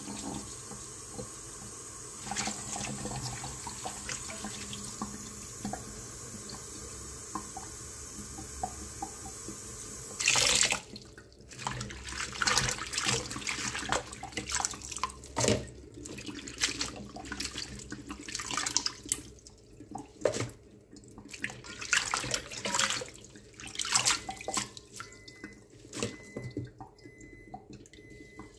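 Kitchen tap running steadily into a stainless steel bowl of water, cut off about ten seconds in. After that come irregular splashing and sloshing as a hand swishes kailan leaves around in the bowl.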